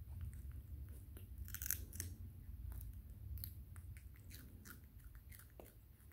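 Baby macaque chewing and picking at a piece of raw green vegetable: a run of small crisp clicks and smacks, loudest about one and a half seconds in, over a low steady hum.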